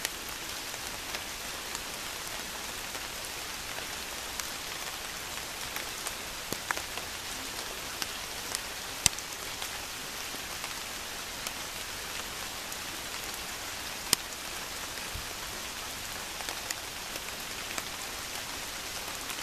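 Steady rain falling on a lake's surface: an even hiss with scattered sharp drop ticks, two louder ones about nine and fourteen seconds in.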